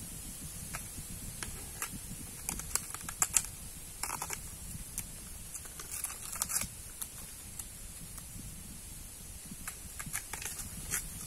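A knife cutting and peeling the stiff, papery husk sheaths off a wild bamboo shoot: irregular dry crackling clicks and tearing, coming in small clusters.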